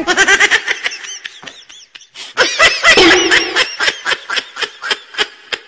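Laughter in a rapid string of short bursts, dipping about two seconds in and louder again soon after.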